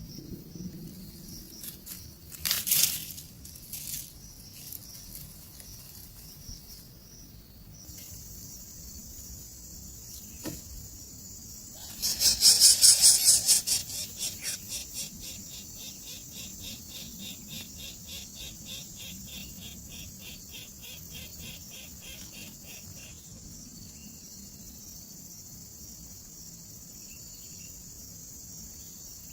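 Loud bursts of rapid, evenly spaced pulses at a bird's nest, about 3 s in and again from about 12 to 14 s, the second fading into softer pulsing that stops near 23 s. A steady high insect drone of crickets runs underneath from about 8 s on.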